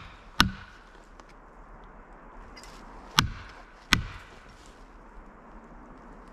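Three hard strikes driving felling wedges into a tree's cut, each a sharp crack with a short ring: one about half a second in, then two more close together about three seconds in. The wedges are being driven to lift and tip the tree over.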